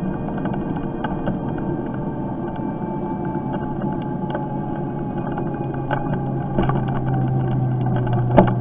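Lexmoto Impulse electric moped riding along, heard from its built-in camera: steady road and motor noise with a faint whine that slowly falls in pitch and a low hum that grows stronger about six seconds in. Small rattles throughout, and a sharp knock near the end.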